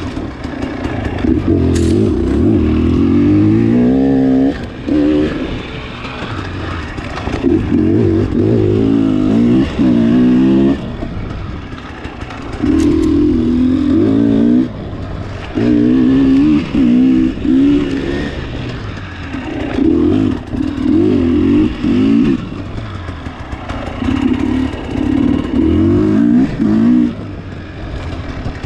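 Dirt bike engine heard up close from on board, revving hard in repeated bursts of throttle with the pitch climbing through each one, then dropping back as the throttle is shut off, again and again as it is ridden round a tight trail loop.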